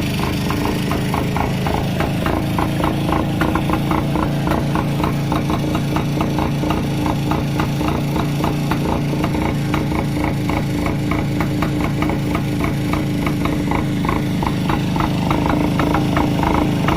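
Old Yezdi motorcycle's two-stroke engine idling after being restarted following 15 years off the road, with an even uneven-idle pulse about three or four times a second and a light rattle. It picks up slightly near the end.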